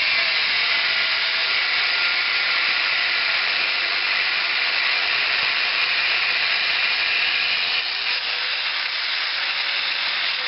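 A 4.5-inch angle grinder mounted in a chop-saw stand, its cut-off wheel grinding through clamped stock with a steady, loud hiss. The cutting noise eases about eight seconds in, as the wheel comes through the piece.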